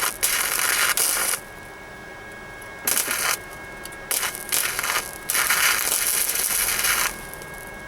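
Flux-core wire-feed welder arc crackling in a run of short bursts, laying spot welds in sheet steel, the longest weld about two seconds near the end. A faint steady whine runs underneath.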